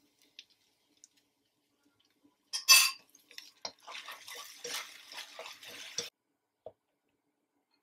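Spoonfuls of sauce hitting a hot nonstick wok of scrambled egg whites: a short, loud splash and sizzle about two and a half seconds in. Then about two seconds of crackly sizzling with small clicks as it is stirred in, cutting off suddenly.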